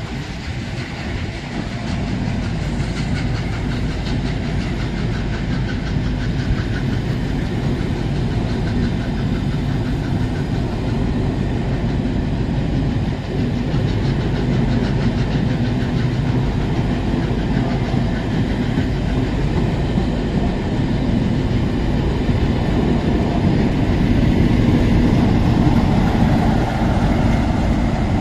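Passenger coaches rolling slowly past, steel wheels running over the track, with the diesel engine of the rear Class 47 locomotive humming and growing louder near the end as the locomotive draws near.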